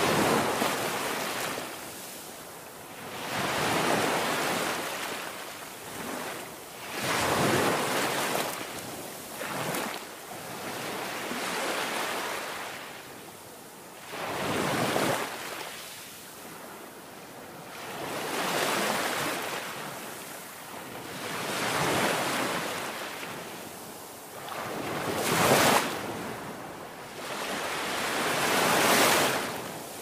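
Sea waves surging and breaking against rocks, a fresh wash of surf swelling and fading every three to four seconds, a few of them arriving with a sudden crash.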